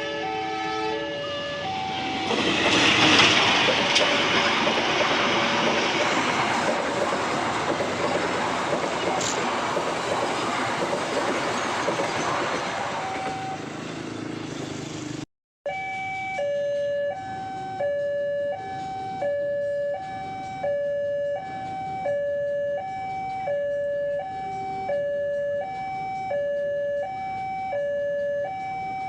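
A train running past over a level crossing, loudest about three seconds in and fading away over some ten seconds, with the crossing's electronic warning alarm sounding alongside. After a brief cut about halfway, the alarm is heard alone: two alternating tones switching about every two-thirds of a second.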